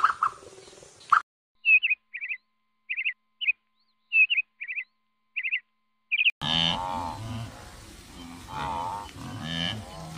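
A bird giving short, high chirps, often in pairs, about a dozen over four seconds. From about two-thirds of the way in, a different animal's repeated calls follow over background noise.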